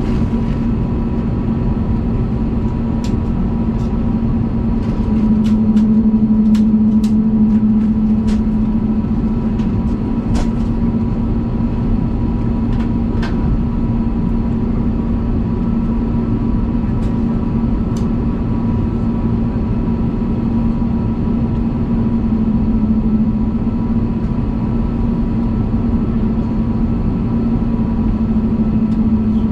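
Cabin noise of an Airbus A320neo with its engines running: a steady hum carrying a constant low tone, with a few light clicks and rattles in the first half.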